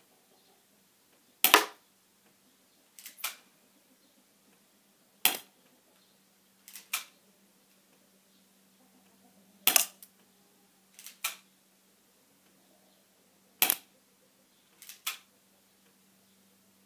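Spring-powered airsoft gun firing four shots, each a sharp loud snap about four seconds apart, with a pair of softer clicks about a second and a half after each shot.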